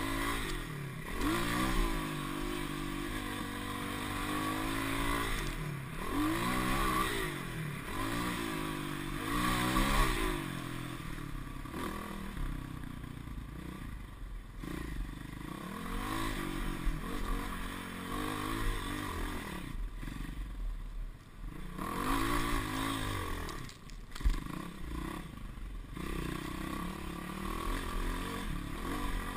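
Dirt bike engine revving up and falling back again and again as it rides a rough trail, with clatter and rattling from the bike over bumps. It eases off briefly a few times, most clearly about two-thirds of the way in.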